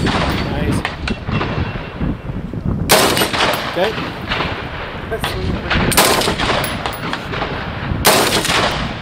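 Three rifle shots fired at a slow pace, about two to three seconds apart, each trailing off in an echo, over a steady low rumble.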